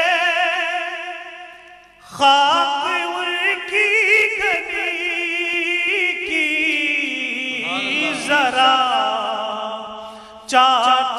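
A man singing an Urdu naat, drawing out long, wavering, ornamented notes. A held note fades out about two seconds in, a new phrase begins, and another starts near the end.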